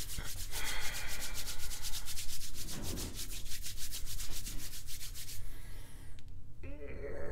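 Hands rubbing together briskly in quick, regular strokes that stop about five seconds in. A short pitched, hum-like sound follows near the end.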